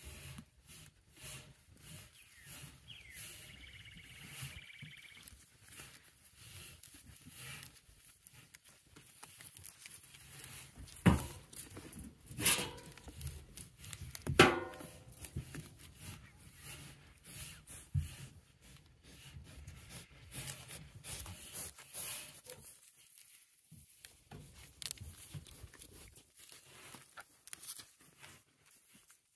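Angora goats moving about right at the phone: scattered rustling and scuffing, with three loud rasping knocks between about 11 and 15 seconds in.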